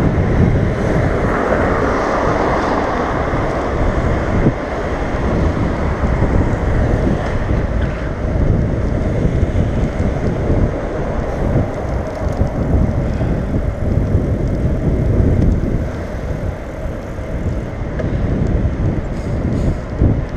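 Steady wind rush buffeting the microphone of a handlebar-mounted camera while a bicycle rides along a city road, with road and traffic noise beneath.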